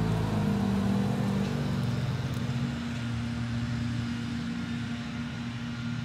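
International 4300 box truck's diesel engine running as the truck drives away, a steady hum that slowly fades.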